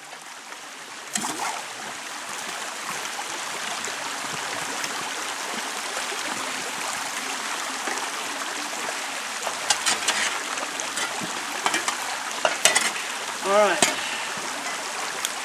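Shallow creek water rushing through a sluice box as a steady hiss, with a few sharp clicks and knocks scattered through it, mostly in the second half.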